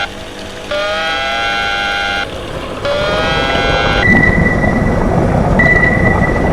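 Submarine dive-alarm sound effect: a horn-like tone that rises in pitch at its start and holds for about a second and a half, sounding twice. From about four seconds in it gives way to a steady rumbling, with a high, steady electronic beep sounding in long pulses over it.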